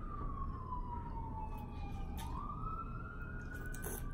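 Police siren wailing, its single tone sliding slowly down for about two seconds and then rising back up, with a few faint clicks.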